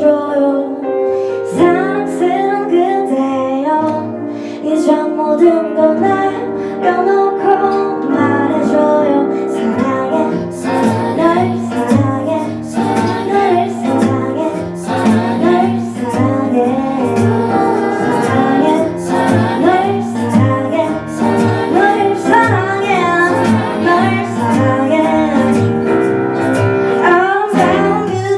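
Live acoustic band playing a slow ballad: two acoustic guitars and a Kurzweil keyboard, with a female voice singing over them.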